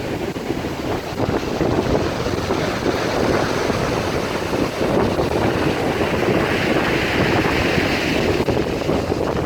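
Storm wind buffeting the microphone, with waves breaking. A hiss swells about halfway through and fades near the end.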